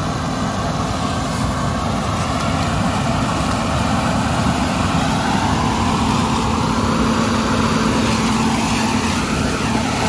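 John Deere S790 combine harvesting corn with its corn head: a steady, continuous machine noise of the diesel engine and threshing gear with a low steady hum, growing gradually louder as the combine comes closer.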